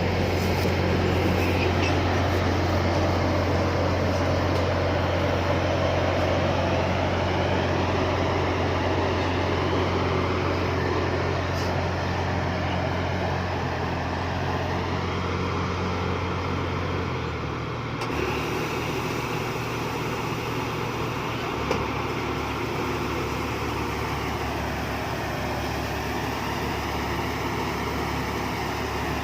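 Rice combine harvester's engine running steadily under load, a constant low hum; about eighteen seconds in the sound changes abruptly to a slightly different steady machine noise.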